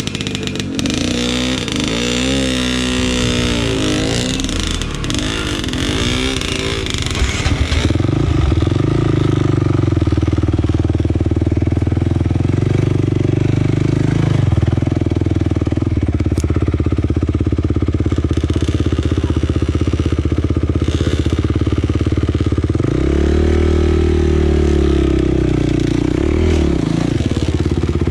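Off-road dirt bike engine pulling along a rough trail. In the first several seconds the revs rise and fall with short blips of throttle. From about eight seconds in it runs louder and steadier, with one big rev up and back down near the end.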